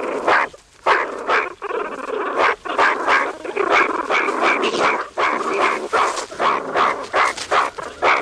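A group of meerkats calling in a fight, ganging up on an intruding male: many short, harsh, overlapping calls, several a second, with no break.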